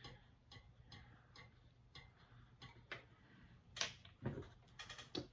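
Faint, even ticking about twice a second, then a few louder clicks and short hisses in the last second and a half.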